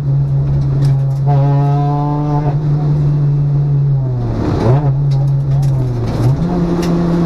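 Citroën DS3 R1 rally car's engine heard from inside the cabin, running hard at a steady high pitch under load along with road noise. About four seconds in the note dips and climbs back, and near six seconds it drops again before jumping up sharply.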